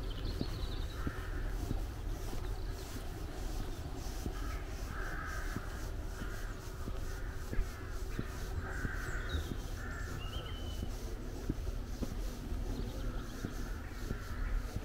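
Crows cawing, harsh calls of about half a second each coming in groups of two or three, over soft footsteps and a low outdoor rumble.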